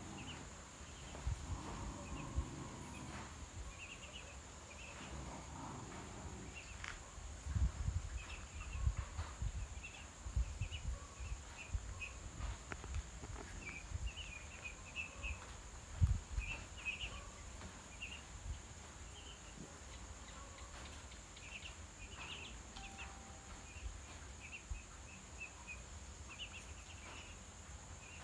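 Ducklings peeping: short clusters of high, thin calls repeated throughout, over a steady high-pitched whine. Dull low thumps come and go in the middle stretch.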